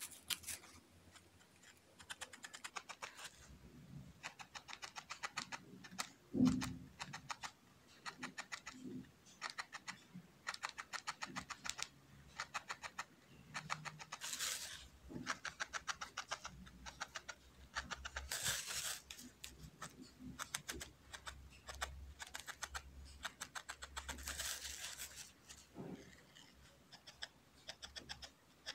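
Felting needle stabbing repeatedly into wool on a foam pad: quick runs of light ticks, several a second, broken by short pauses. A few brief rustles and one dull knock about six and a half seconds in.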